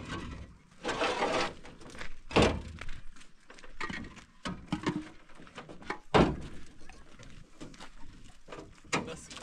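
Hollow concrete blocks being handled and set down off a pickup's tailgate: a scrape about a second in, then heavy thunks at about two and a half and six seconds, with lighter knocks between.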